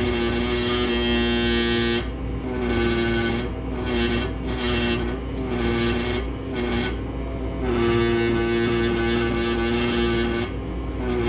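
Pneumatic air scribe buzzing against the shale matrix of a fossil, switched on and off in repeated bursts of about half a second to two seconds as matrix is chipped away. A steady low hum runs underneath.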